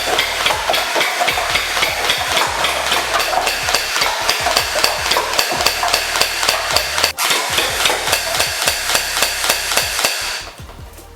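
Battery-operated toy gel-ball rifle firing on full auto: a rapid, steady rattle of shots, with a momentary break about seven seconds in, stopping about ten seconds in.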